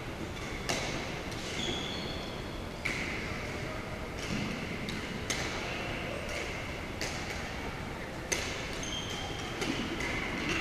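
Badminton rally: rackets striking the shuttlecock with sharp smacks every one to two seconds, echoing in a large gym, with brief squeaks of sneakers on the hardwood floor in between.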